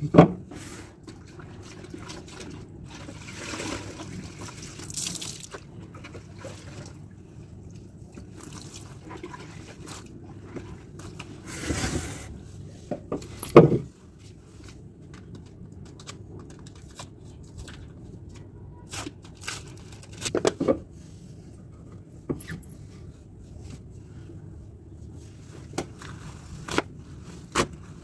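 Clothes being washed by hand on a tiled floor: wet fabric rubbed, wrung and slapped, with splashes and drips of water. A few sharp knocks stand out, one near the start and the loudest about halfway through.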